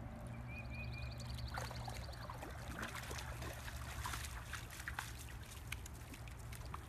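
A large dog wading through shallow water, its legs splashing and sloshing in irregular strokes, thickest in the middle as it steps out onto the bank, over a steady low rumble.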